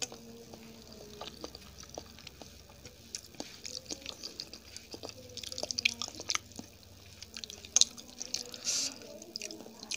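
Close-miked wet chewing and mouth smacks from someone eating soft, moist food, a run of irregular sharp clicks, with the loudest smacks around the middle and about eight seconds in.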